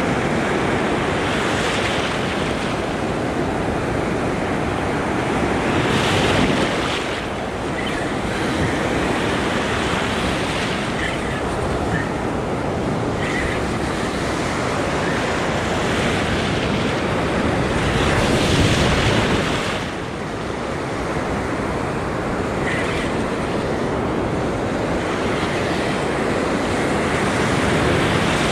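Surf breaking and washing through the shallows around the angler, a steady rush of water with two louder surges of breaking waves, about six seconds in and again around eighteen to nineteen seconds.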